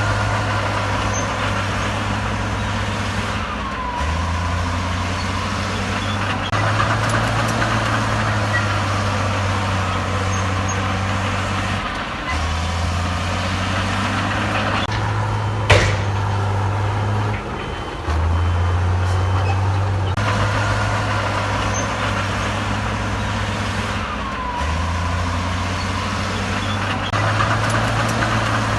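Heavy diesel earthmoving machinery running, its low engine note stepping up and down every few seconds as the load changes, with one sharp knock about halfway through.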